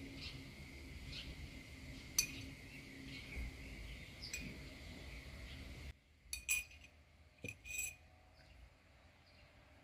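A spoon clinking against small glass jars and dishes as spices are taken out: a few sharp clinks about two and four seconds in, then a quick cluster of clinks between six and eight seconds in. Faint bird chirps sound behind the first part.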